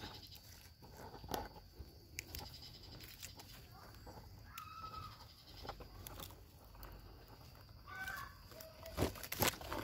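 Okra leaves and stems rustling and brushing against the microphone as pods are picked by hand, with scattered sharp clicks, the loudest near the end. Two short animal calls sound in the background, about halfway through and again near the end.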